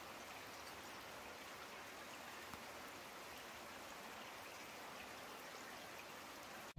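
Steady rain falling during a night thunderstorm: a faint, even hiss with no thunder in it, which cuts off suddenly just before the end.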